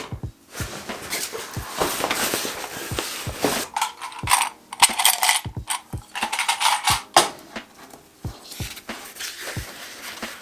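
A recycled sailcloth bag crinkling and rustling as it is set down and handled, with scattered clicks and taps. The rustling is loudest about four to seven seconds in.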